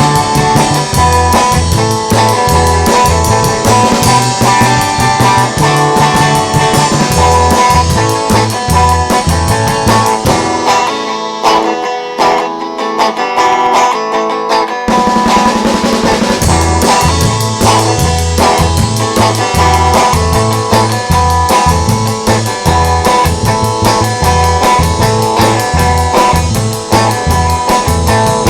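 Instrumental rock music with guitar, drum kit and a low bass line. About ten seconds in the low end drops away for around four seconds, leaving the thinner upper parts, then the full band comes back in.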